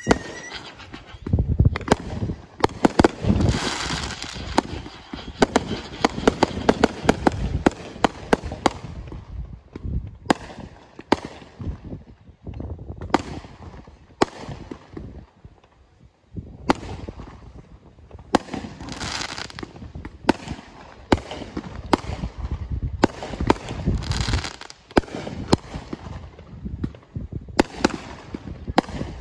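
Fireworks display: a rapid string of shots launching and bursting overhead. It thins out about halfway through and goes nearly quiet for a moment, then the shots pick up again.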